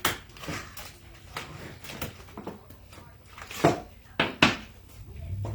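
Kitchen handling sounds: scattered small clicks and knocks of utensils and dishes, with two louder knocks about three and a half and four and a half seconds in. A low steady hum starts near the end.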